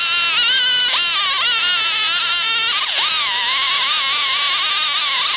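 Small top-handle two-stroke chainsaw running at high revs as it plunge-cuts through the wood of a carving. Its high engine note wavers and sags about one second and three seconds in.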